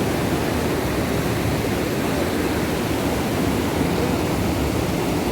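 Loud, steady rushing of a mountain waterfall and its fast-flowing stream.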